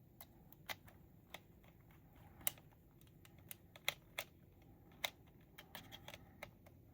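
Small screwdriver tightening tiny screws into a scale model's landing-gear bay: a string of faint, irregular clicks and ticks.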